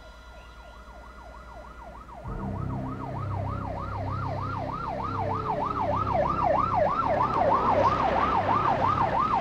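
Ambulance siren in a fast yelp, its pitch sweeping up and down about three to four times a second, growing louder as it approaches. From about two seconds in, a low engine rumble runs under it.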